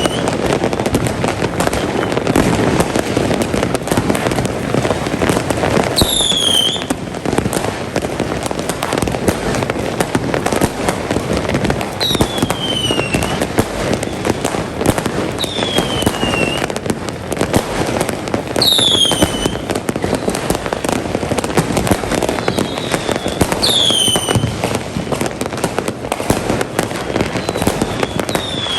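Many fireworks and firecrackers going off at once in a dense, continuous crackle and banging, with a short falling whistle every few seconds.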